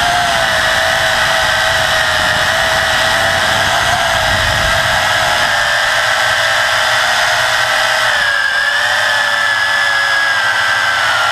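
WLtoys V262 quadcopter's motors and propellers whining steadily, heard close up from the camera mounted on the craft. The pitch wavers slightly, dipping and recovering about eight seconds in. A low rumble under it dies away about halfway through.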